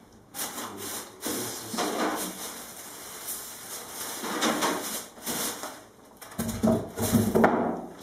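Cardboard box and packing being handled as a PC case is pulled out: irregular rubbing and scraping, with two dull thuds near the end.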